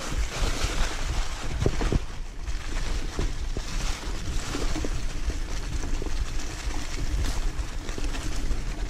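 Enduro motorcycle running along a rough trail, its engine under heavy wind rumble on the microphone, with a few knocks from the bumpy ground.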